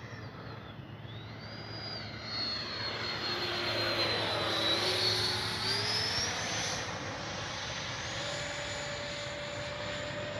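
E-flite F-16 70 mm electric ducted-fan jet in flight, its fan whine dipping briefly, then climbing in pitch in steps over the second half as the throttle comes up. It grows louder toward the middle and holds steady after.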